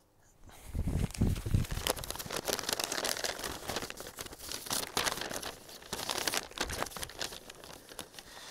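Folded sheets of paper being unfolded and handled, crinkling and rustling almost continuously, with a few dull knocks about a second in.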